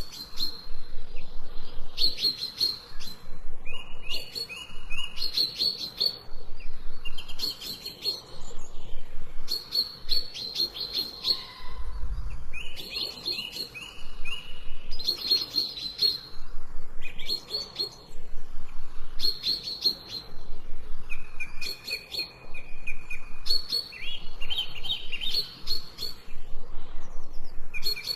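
Songbirds chirping and singing, with short rapid trilled phrases and clear whistled notes repeating every second or two and overlapping.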